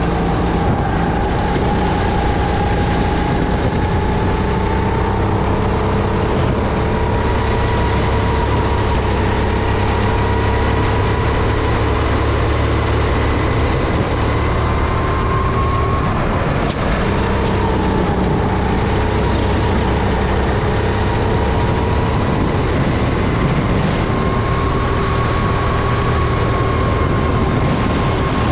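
Honda GX270 single-cylinder four-stroke engine of a Sodi RT10 kart running hard at racing speed. Its pitch climbs slowly, dips briefly about halfway through, then climbs again.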